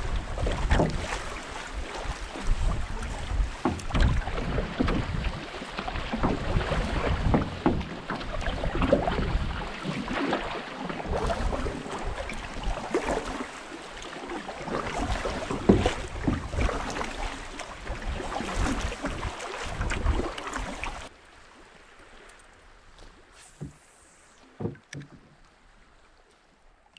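Canoe being paddled through choppy water: water splashing and slapping against the hull under paddle strokes, with heavy wind buffeting the microphone in irregular gusts. About 21 seconds in the sound cuts abruptly to a much quieter scene with a few light clicks.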